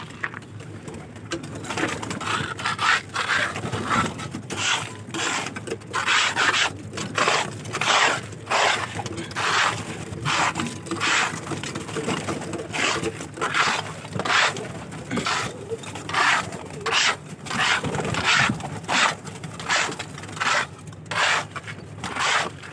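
A large khurpi (hand hoe) scraping caked pigeon droppings and dirt off a cage floor, in short repeated strokes about one or two a second.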